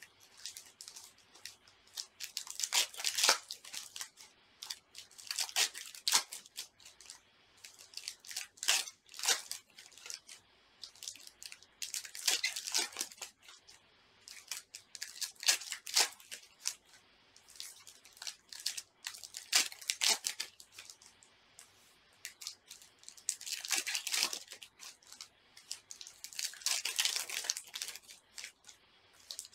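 Foil wrappers of 2021 Panini Select baseball card packs being torn open and crinkled, one pack after another: a burst of tearing and crinkling every three to four seconds.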